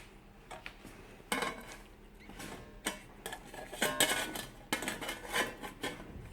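Small pieces of spot-welded sheet steel clinking and knocking as they are handled and set down one after another, several sharp metallic clinks with a brief ring.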